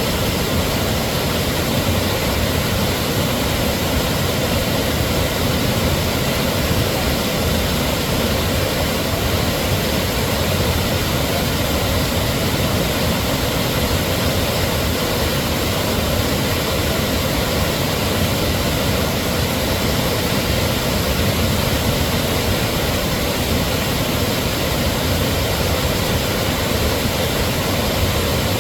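Waterfall roar: a steady, dense rush of falling water.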